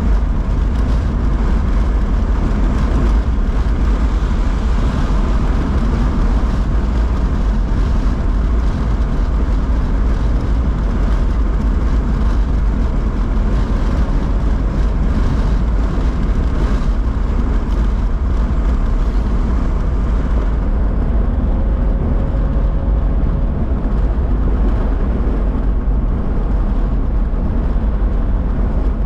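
Steady city street traffic noise with a heavy low rumble, unchanging throughout.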